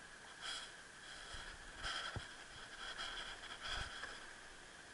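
Faint handling noise: soft rustles and breath-like hisses about once a second, with a few light knocks.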